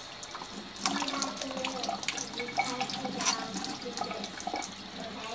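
Water running from a kitchen tap while apples are peeled and diced, with sharp clicks and knocks from the peeler and knife, the loudest about a second in and again past the three-second mark.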